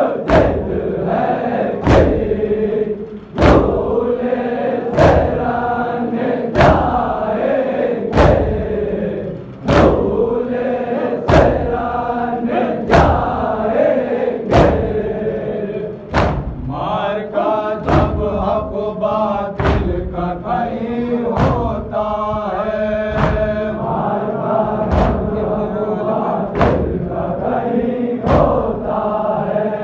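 A noha, an Urdu lament, chanted by a group of voices in a steady melody, kept in time by a sharp chest-beating thump (matam) about every one and a half seconds.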